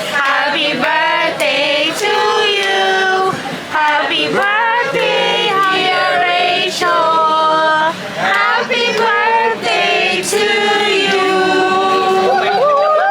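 Background pop song with a layered female singing voice holding long, wavering notes.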